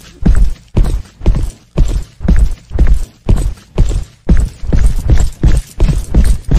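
Footstep sound effect for walking: a steady run of deep thuds, about two to three a second.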